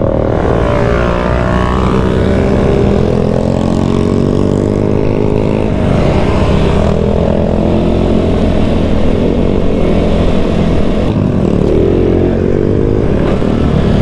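An everyday road motorcycle's engine running under load on rough rocky ground. It is steady, and its pitch rises and falls a little as the throttle changes.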